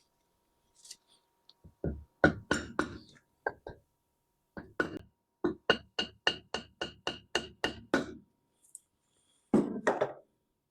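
Hammer tapping on a metal part of a Bridgeport J-head milling machine head during assembly. A few scattered taps come first, then a quick run of about four taps a second with a faint ring, and two louder blows near the end.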